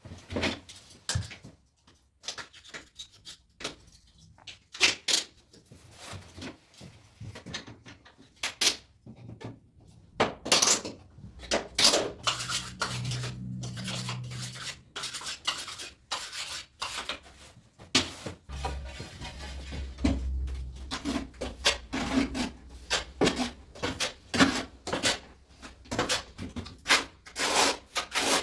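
Tiling work: short clicks and scrapes of plastic leveling clips and wedges being handled against ceramic wall tiles, sparse at first. From about two-thirds of the way in they give way to a dense run of rasping strokes: a steel notched trowel combing tile adhesive onto the back of a tile.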